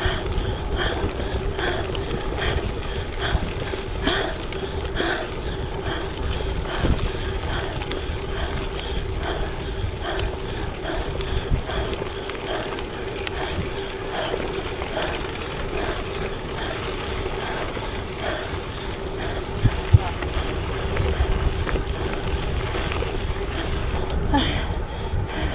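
A gravel bike ridden at speed, with a steady rolling hum and low rumble throughout and regular mechanical clicking from the bike.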